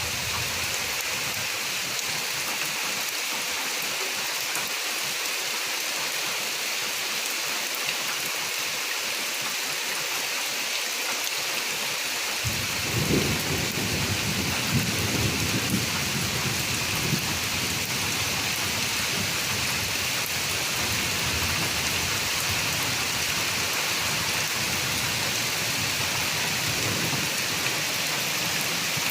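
Steady rain falling, an even hiss. About halfway through, a low rumble of thunder comes in. It is strongest for a few seconds and then fades under the rain.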